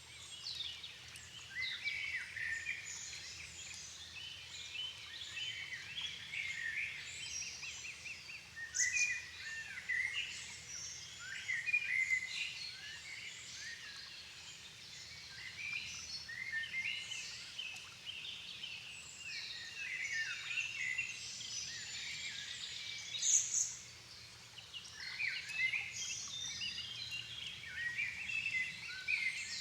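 Dusk chorus of many forest songbirds singing at once, with overlapping chirps, trills and short song phrases and one sharper high call about three quarters of the way through.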